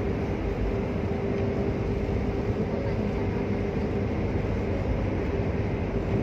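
Steady road and engine noise inside a moving car's cabin: an even low rumble with a faint steady hum.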